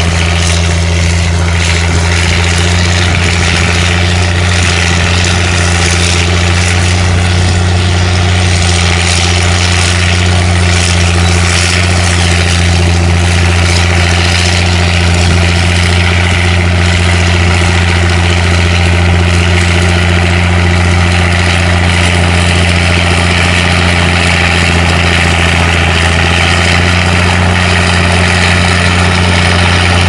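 Caterpillar D6 crawler bulldozer's diesel engine running steadily under load as the dozer pushes earth with its blade, a deep, constant hum.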